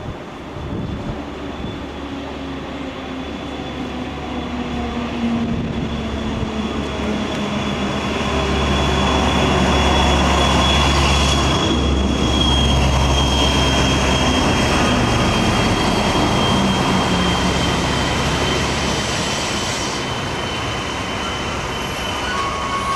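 TGV trainset running slowly beneath an overbridge, its rumble growing louder as it comes close and passes under, with a steady high whine that slowly drops in pitch.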